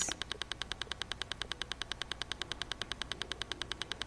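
A steady, rapid train of sharp clicks, about ten a second, with no voice over it.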